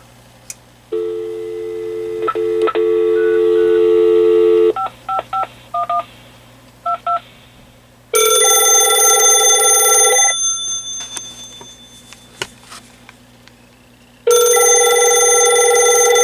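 Telephone call being placed on a Vtech 6773 cordless handset on speakerphone. A steady dial tone plays for about four seconds, with a couple of short key beeps, then a quick run of touch-tone digits is dialled. A telephone's warbling electronic ring follows twice, each ring about two seconds long and several seconds apart.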